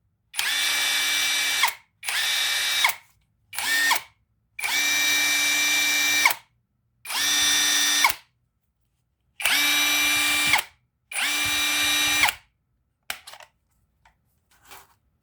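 Cordless power tool motor triggered seven times in short bursts of about a second each, running unloaded with a steady whine and winding down after each release. A couple of faint clicks follow near the end.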